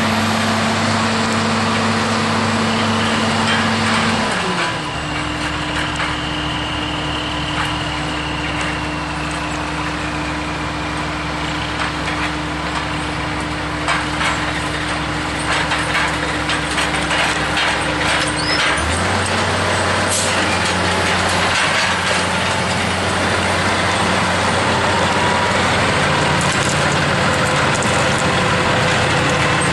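Log truck's diesel engine running, its note changing abruptly twice: dropping about four seconds in and rising again a little past halfway, as with gear changes. Scattered clanks and rattles run through the middle.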